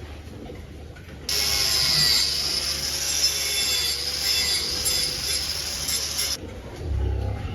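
A machine running with a steady whirring hiss and a faintly wavering whine. It starts suddenly about a second in and cuts off suddenly about a second before the end.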